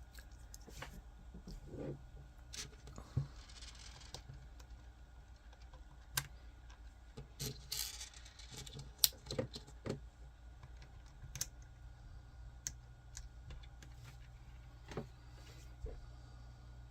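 Small 3D-printed plastic parts being handled and fitted together: scattered light clicks and taps, with brief rustling twice.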